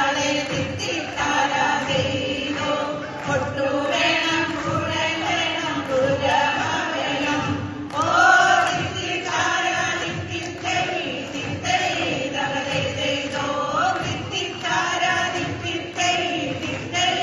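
A women's choir singing together through stage microphones, in long held notes that move from pitch to pitch.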